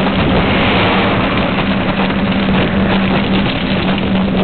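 Wind rushing over the microphone of a camera on a moving bicycle, with tyre noise on tarmac and a steady low hum under it.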